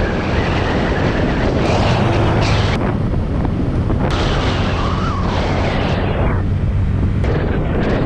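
Motorcycle engine running steadily under way, with heavy wind noise buffeting the action camera's microphone and rising and falling in gusts.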